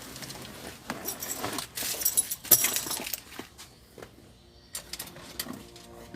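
A bunch of keys jangling, with scattered clicks and rattles that are loudest about two seconds in. Music begins near the end.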